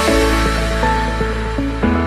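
Electronic background music: a held low bass note under a melody, with no beat, and a change of chord near the end.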